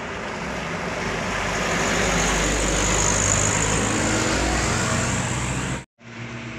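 Sugarcane haul truck approaching and passing at speed: engine and tyre noise build to a loud peak and then ease off as it goes away. Near the end the sound cuts off abruptly, and a second truck's engine takes over, running steadily.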